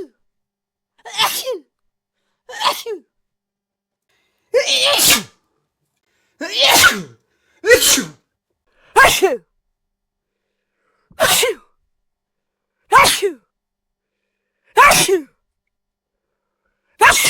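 A series of about ten separate human sneezes. Each is a burst of about half a second, with one to two seconds of silence between them.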